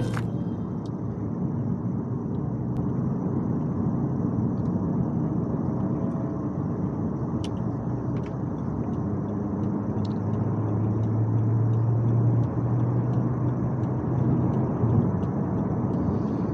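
Perodua Axia driving on a town road, its steady road and engine noise heard from inside the car. A low engine hum comes in about halfway through and drops out near the end as the car eases along in traffic.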